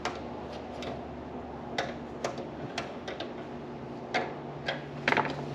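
Irregular light clicks and taps of hand tools and small metal parts handled while taking apart a propane Buddy heater, with the loudest cluster near the end, over a steady low hum.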